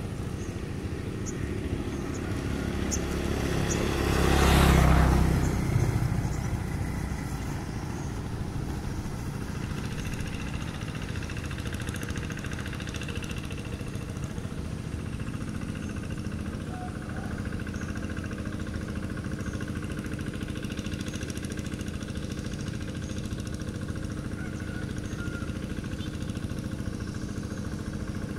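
Quick two-wheel hand tractor's Kubota single-cylinder diesel engine running steadily while it drives its cage wheels through paddy mud. There is a brief loud swell of noise about four to six seconds in.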